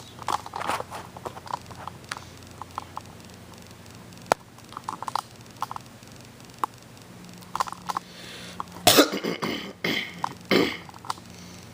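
Handling noise from a VHS cassette and its plastic case: scattered light clicks and knocks, then two louder rustling bursts near the end.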